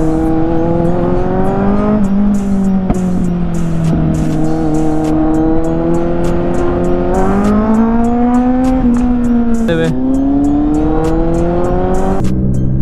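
Kawasaki inline-four motorcycle engine pulling through traffic. Its pitch climbs and sags with the throttle, drops sharply about ten seconds in, then climbs again.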